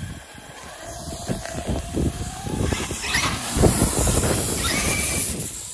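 Traxxas X-Maxx electric RC monster truck pulling away, its motor whine rising about a second in. About halfway through, a loud scraping rush comes in as the rake dragged behind it scrapes over the asphalt and leaves.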